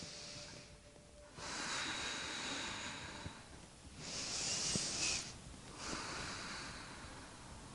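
A woman breathing slowly and audibly in and out through her nose, four soft hissing breaths of one to two seconds each with short pauses between.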